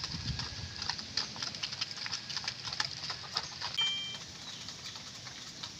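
Chickens moving about, with many short clicks and taps throughout and a brief high call from a bird about four seconds in.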